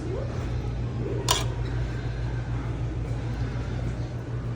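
Steady low mechanical hum with one sharp click about a second in.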